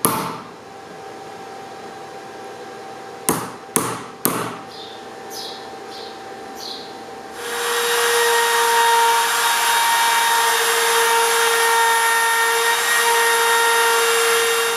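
Four sharp knocks as a chisel is driven into the marked hinge lines, with a little scraping after. About seven seconds in, a battery-powered router starts and runs steadily with a whine, cutting the hinge recess in the door edge.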